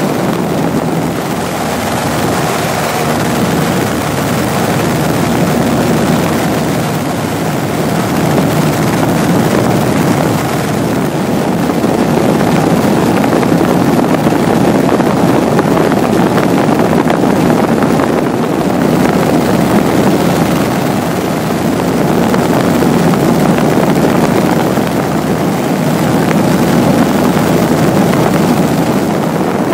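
Cabin noise of a Cessna light plane in flight: the steady drone of its engine and propeller, mixed with wind noise.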